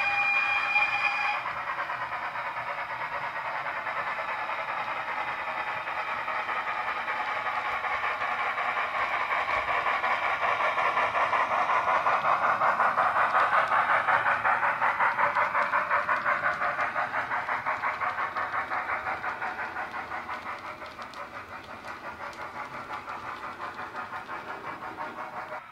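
Sound decoder in a model LMS Beyer Garratt steam locomotive, playing a Wheeltappers steam sound file through the model's small speaker. A steam whistle ends about a second in. Then comes a steady rhythm of exhaust chuffs, growing louder as the loco passes and fading as it runs away.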